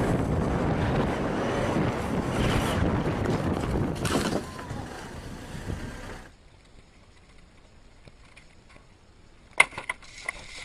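Loud rolling rumble of longboard wheels on asphalt mixed with wind on the microphone, fading out about four to six seconds in. After a quiet stretch, a few sharp knocks near the end as a bicycle crashes on a ramp.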